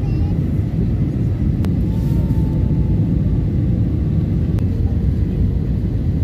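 Steady rumble of an Airbus airliner in flight, heard from inside the cabin: jet engines and rushing air. Two faint clicks come through it about a second and a half and four and a half seconds in.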